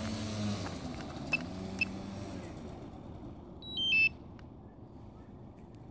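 DJI drone remote controller beeping as it is switched off: two short single beeps about a second and a half in, then a quick run of stepped high beeps about four seconds in, its power-off signal. A low hum fades away during the first half.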